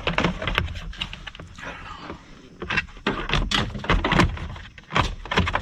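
Plastic lower dash trim cover being handled and pushed up against the dashboard: a run of irregular plastic clicks and knocks, thickest in the middle.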